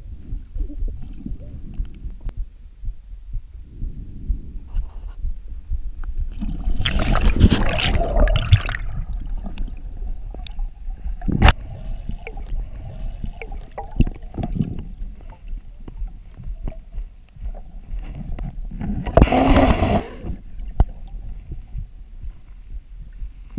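Muffled underwater sound picked up by a camera in a housing on a freediver's chest: steady low thuds and rubbing from her body and the housing. Two louder rushing noises come about 7 s and 19 s in, and there is a sharp click about halfway through.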